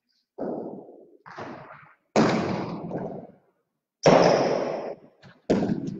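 Jai alai ball (pelota) cracking against the court's walls and floor, five sharp hits each trailing off in a long echo through the hall.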